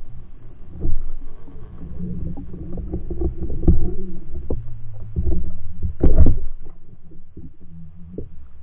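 Muffled underwater sound: a low rumble with scattered knocks and bumps, the loudest a short cluster of knocks about six seconds in.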